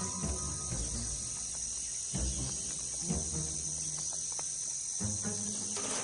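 Steady high-pitched insect chorus, with intermittent low hums underneath.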